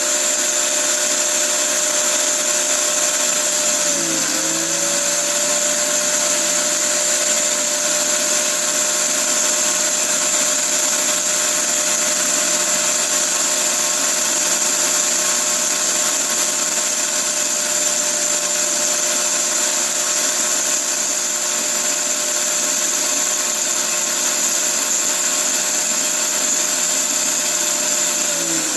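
Corded electric power tool running steadily with a whine. Its speed dips briefly about four seconds in, then recovers, and it winds down near the end.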